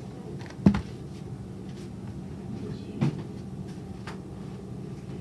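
Dull knocks of a plastic food tub and utensils set down on a countertop: one sharp thump under a second in, another about three seconds in, and a few light clicks, over a steady low hum.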